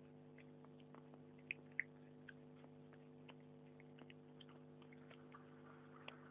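Near silence with a steady electrical hum and sparse, faint, irregular clicks, two slightly louder about a second and a half in: a small pet chewing pieces of cucumber.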